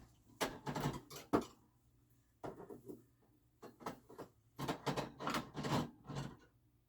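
Rummaging in a refrigerator: bottles and jars being shifted on the shelves, knocking together in several short bouts.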